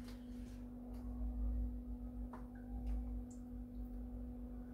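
Quiet room tone: a steady low hum, with two or three faint clicks.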